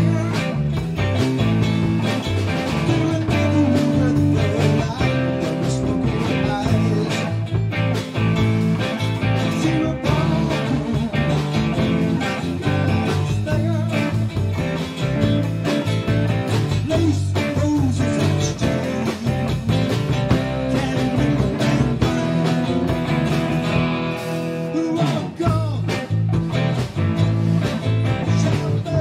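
Live band playing a song on electric guitar, archtop acoustic guitar, electric bass and drum kit, with a steady drum beat.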